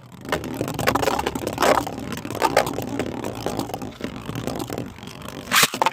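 Plastic Beyblade spinning tops, one of them 3D-printed, spinning and scraping against each other and the stadium with a constant rattling clatter, then a sharp loud hit near the end, the kind of collision that bursts a top apart.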